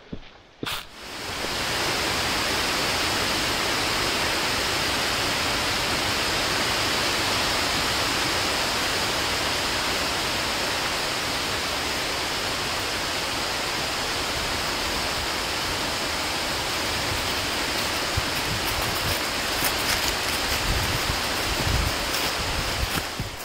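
Steady, even rushing noise with no pitch to it. Near the end, footsteps come closer on a trail covered in dry leaves, with a few low thumps and some crackling.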